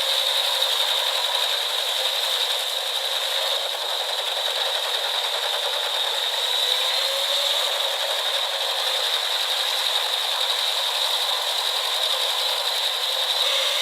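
Machinery running with a steady, dense rattle and clatter that does not let up.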